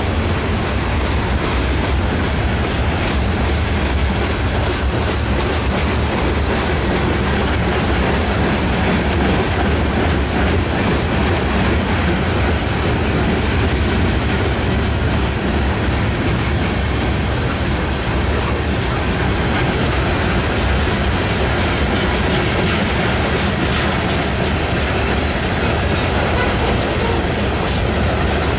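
Covered hopper freight cars rolling steadily past on the track, shoved by a locomotive out of sight at the far end: a continuous rumble with wheels clicking over the rail joints, the clicks more frequent in the later part.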